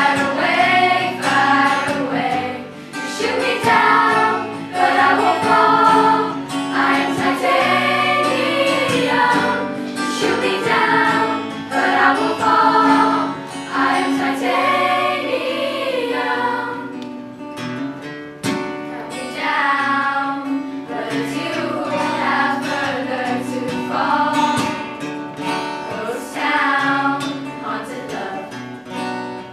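A school choir singing a song together, phrase after phrase, with a short break in the singing about two-thirds of the way through.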